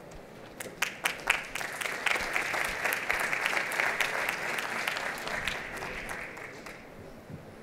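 Audience applauding: a few scattered claps at first, then steady clapping that thins out and dies away about seven seconds in.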